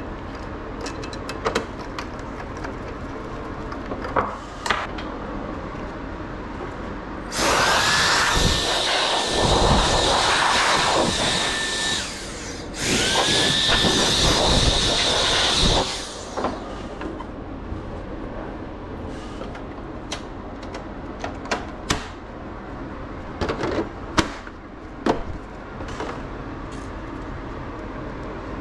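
A small high-speed electric motor spinning up to a steady whine with a loud hiss of air, run twice for a few seconds each time, about seven and thirteen seconds in. Light clicks and taps of small tools come in between.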